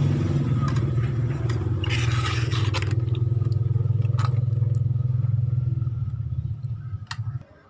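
An engine running steadily with a low, even hum, which dies away about six and a half seconds in. Scattered clicks and scraping sounds come over it.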